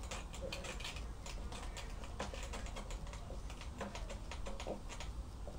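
Marker writing on a whiteboard: a run of small, quick scratching taps and strokes as letters are written.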